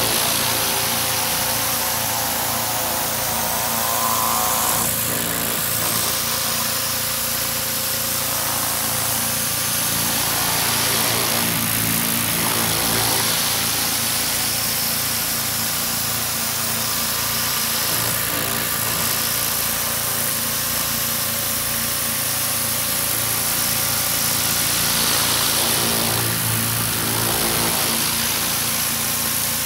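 Pressure washer running steadily: an even engine hum under the hiss of the high-pressure water jet blasting algae off white vinyl fence panels.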